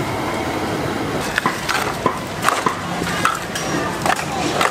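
Irregular short knocks and clicks over steady background noise.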